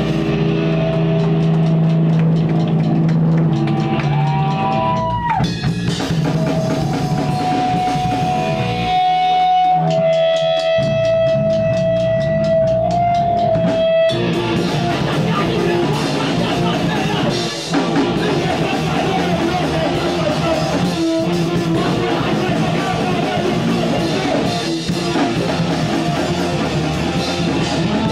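Live punk/hardcore band playing loud: distorted electric guitar, bass and drum kit. About nine seconds in, the bass drops out and a single high note is held over rhythmic ticks for a few seconds, then the full band crashes back in.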